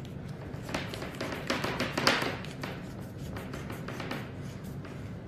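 Irregular clicks and taps of hard parts being handled, with a louder scrape about two seconds in, as the battery-loaded adapter of a canister dive light is handled and fitted.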